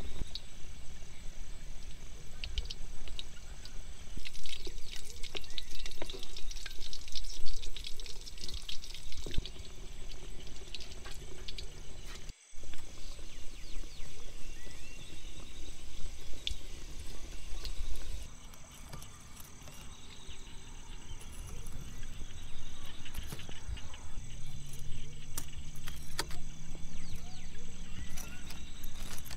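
Chicken and prawn fish cakes deep-frying in hot oil in a large wok, a dense crackling sizzle that is busiest in the first half. About 18 seconds in it drops to a quieter background, and a low hum that slowly rises in pitch comes in near the end.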